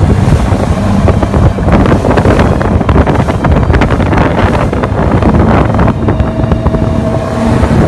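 Wind buffeting the microphone hard over a small fishing boat running underway, its engine a steady hum beneath the gusts that comes through more clearly near the end.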